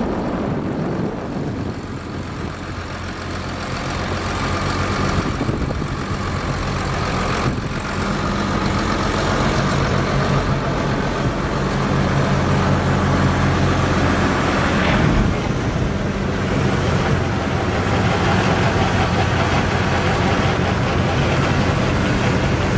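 Six-cylinder turbo diesel engine of a 2004 Versatile 2210 tractor idling steadily.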